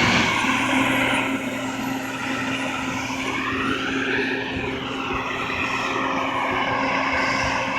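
A loud, steady machine drone: a low hum under a rushing noise whose tone slowly sweeps up and down.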